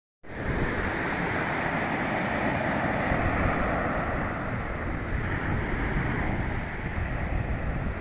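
Small waves breaking and washing up a sandy beach, a steady surf noise, with wind rumbling on the microphone.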